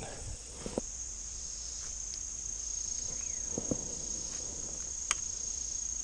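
Insects shrilling together in one steady, high-pitched drone, with a single brief click about five seconds in.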